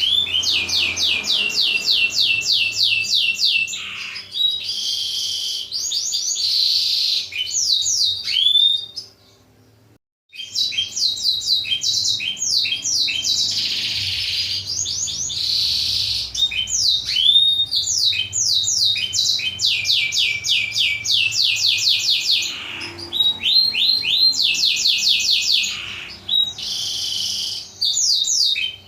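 Blackthroat (black-throated canary) song: long, fast trills of quick sweeping high notes mixed with warbled phrases. The song breaks off for about a second around nine seconds in, then resumes.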